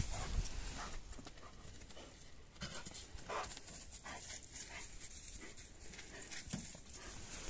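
Dog panting, fairly quietly, with a few short, sharper breaths a little over halfway through.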